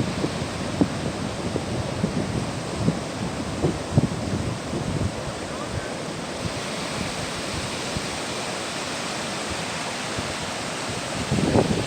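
Ocean surf washing on a beach, with wind buffeting the microphone. The hiss of a wave's wash builds about halfway through.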